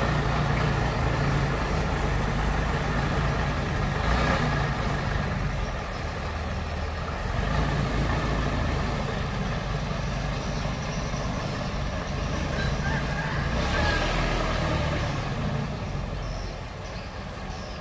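Long-tail boat motor running steadily, a low engine hum with brief louder rushes about four seconds in and again near fourteen seconds.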